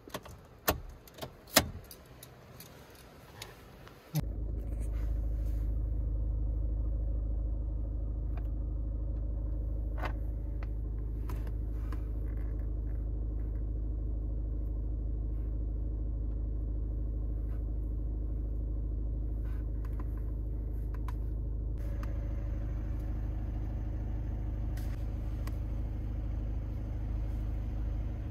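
A few sharp clicks and a rattle, then about four seconds in the VW Jetta's engine starts and settles into a steady idle, heard from inside the cabin.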